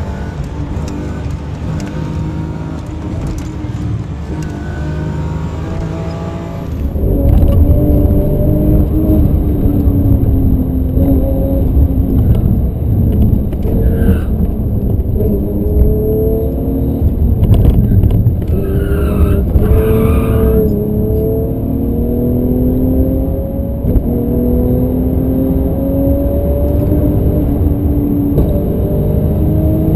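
Car engine at high revs, heard from inside the cabin. Its pitch climbs and drops back again and again as the car is driven hard through the gears. It gets much louder about seven seconds in.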